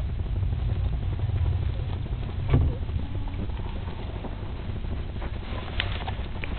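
Low rumbling handling noise of a handheld camera's microphone brushing against dog fur, with scattered faint clicks and a sharper knock about two and a half seconds in.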